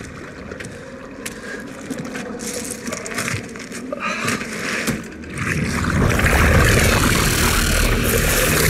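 Film sound effects of a black alien symbiote emerging from a man's body: faint scrapes and clicks at first, then about five and a half seconds in a sudden loud, dense swell of noise with a deep rumble underneath.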